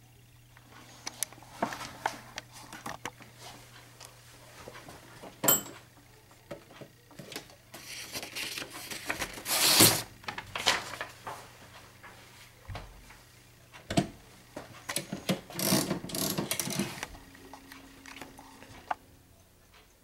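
Scattered mechanical clicks and a few short rattling runs from a 1968 Royal 440 manual desktop typewriter's carriage and platen being worked by hand.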